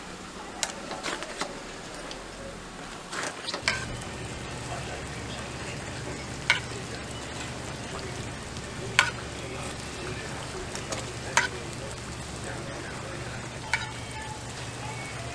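Hotteok frying in shallow oil on a flat griddle, a steady sizzle, with sharp metal clinks of the press and tongs every couple of seconds. A low steady hum joins about four seconds in.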